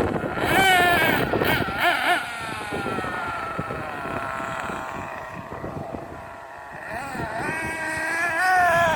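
Losi 8IGHT-T RC truggy's motor whining at high pitch: it revs up in two quick surges, falls away and fades as the truggy runs off, then rises again near the end as it comes back.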